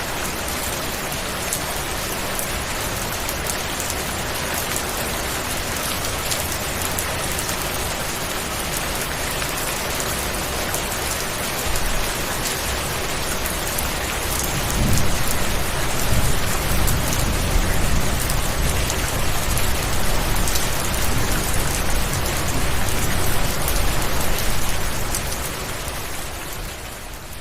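Steady heavy rain. From about halfway through, a deep rumble of thunder builds under the rain, and the sound fades down near the end.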